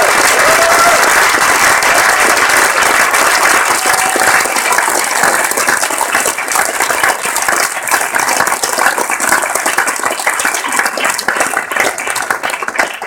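An audience in a cinema hall applauding, dense clapping from many hands that thins out and dies away near the end.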